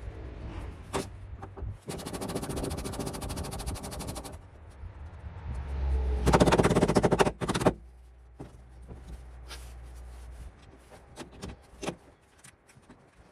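Hand tools working on an aluminum boat's old throttle and shift control mount as it is taken off: a fast, even rattle of clicks for about two seconds, then a louder clatter about six seconds in. A low hum runs underneath until about ten seconds in, followed by a few scattered single clicks.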